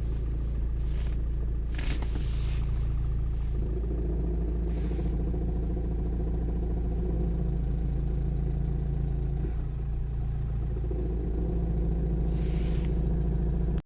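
Renault Megane 3 running, its engine hum shifting in pitch twice as the load changes, with one sharp knock about two seconds in. The car shows a heavy knock in the cabin when reverse is attempted.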